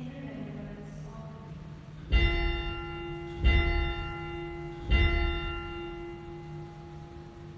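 A bell struck three times, about a second and a half apart. Each stroke rings on at the same pitch with a long, slowly fading tone.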